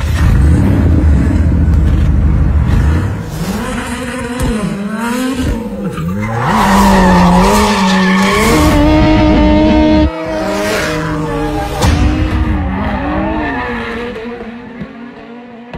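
A performance car engine revving hard up and down, with tyres squealing as it slides. The sound fades away over the last few seconds.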